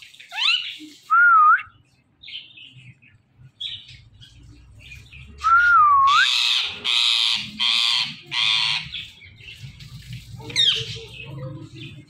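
Indian ringneck parakeets calling: a couple of short wavering whistles, then four loud harsh squawks in quick succession around the middle, and one more sharp sweeping call near the end.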